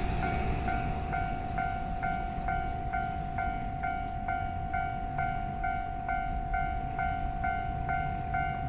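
Railway level crossing warning bell ringing, an even ding-ding repeating about twice a second as the train approaches, over a low rumble.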